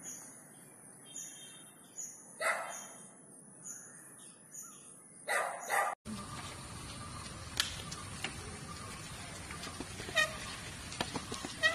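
A dog barking a few times. After an abrupt cut about halfway, a steady outdoor hiss with a few short bird chirps.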